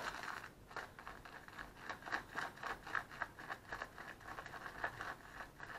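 Shaving brush whisking soap lather around the grooved inside of a glazed ceramic lathering bowl: soft, wet scraping in quick, regular strokes as the lather builds.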